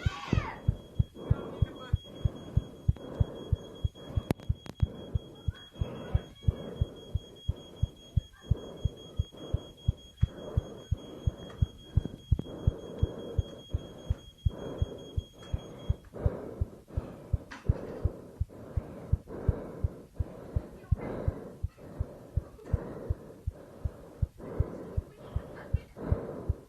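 A heartbeat sound effect: deep double thumps repeating at an even pace. Over it a smoke alarm holds one steady high tone, which cuts off about two-thirds of the way through.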